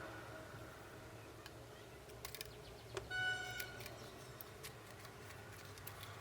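Scattered light clicks and taps of small tools on phone parts at a repair bench, with a short electronic beep about three seconds in, over a steady low hum.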